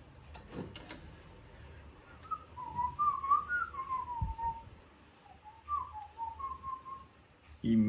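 A person whistling a short melody. It starts about two seconds in, the pitch wavers up and down as the tune goes, and it ends about seven seconds in.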